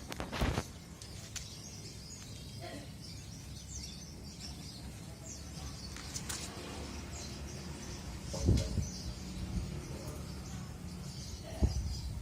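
Small birds chirping again and again, in short high notes, over a steady low background rumble. A few brief thumps come near the start, past the middle and near the end.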